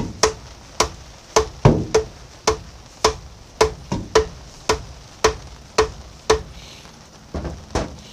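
Lead screw of a 1931 South Bend lathe being tapped on the end with a hammer: sharp strikes at about two a second, each with a short ring, then a few lighter taps near the end. The screw is seized in its bearing and is being driven out.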